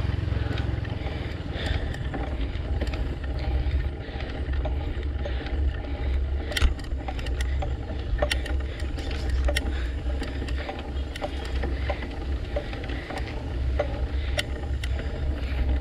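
Motorcycle riding along, heard from a camera mounted on the bike: a steady low rumble with sharp clicks and rattles scattered through it.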